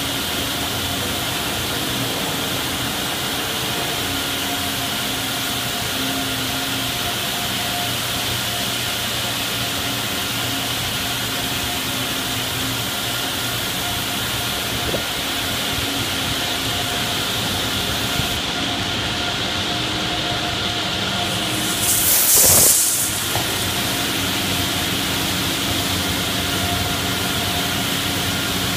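Automatic tunnel car wash running: a steady rush of water spray and spinning brushes on the car body, under a faint hum of motors and pumps. About 22 seconds in, a short, loud hissing blast of a high-pressure spray.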